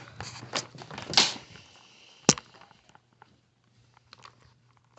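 Short clicks and rustling in the first couple of seconds, one sharp click just over two seconds in, then a few faint ticks, over a low steady hum.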